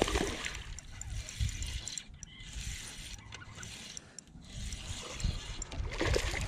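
Fishing reel being cranked while fighting a hooked bass, a clicking mechanical whir, with water splashing and wind rumbling on the microphone.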